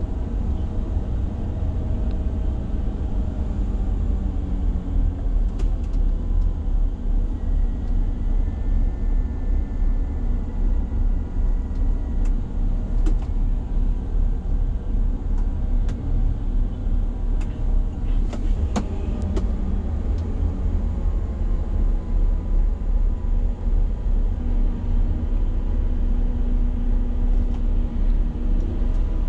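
Diesel engine of a Liebherr LTM mobile crane idling steadily, a low pulsing rumble heard from inside the operator's cab, with a few light clicks in the middle of the stretch.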